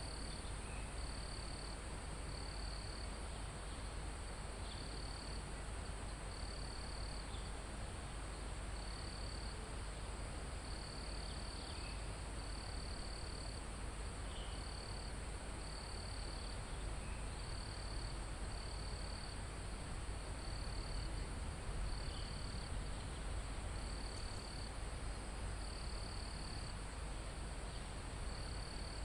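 Forest insects: a steady high-pitched drone, with a cricket trilling in short bursts about a second long and a little gap between each. Under them runs a low steady rumble of wind.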